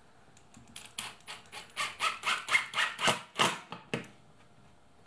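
Cordless drill/driver driving screws through a metal table mount into plywood: a run of sharp clicks, about four a second, starting about a second in and lasting around three seconds.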